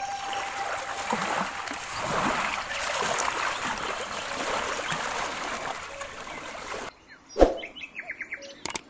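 Choppy river water splashing and washing close by. About seven seconds in, the water cuts off suddenly and gives way to a few short clicks, a thump and small chirping effects of a subscribe-button animation.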